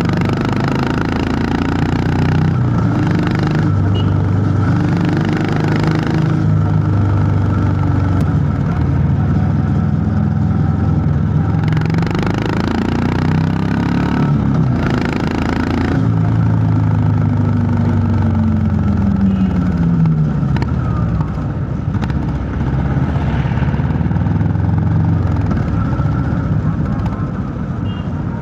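Honda CB350 H'ness's air-cooled single-cylinder engine running under way. Its pitch climbs and drops off again several times, with a long falling sweep about halfway through.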